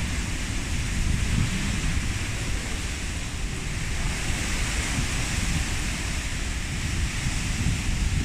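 Typhoon wind blowing steadily with a broad hiss, while gusts buffet the microphone in a fluttering low rumble.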